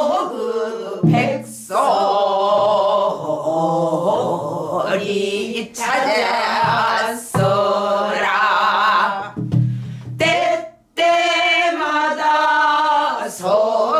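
A woman singing a pansori danga in the throaty pansori style: long held notes with a wide, wavering vibrato, sung in phrases broken by short breaths.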